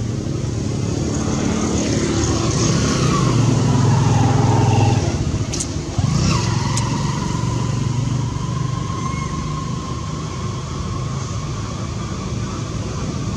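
Motor vehicle engines going by: one swells to its loudest about four to five seconds in and drops away. A second follows with a steady whine that slowly fades.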